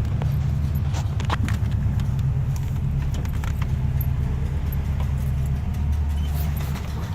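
2007 Mazda 3 heard from inside the cabin while driving slowly: a steady low engine and road hum with scattered, irregular sharp clicks. The owner, going by a Mazda forum, suspects the water pump or a CV axle or boot.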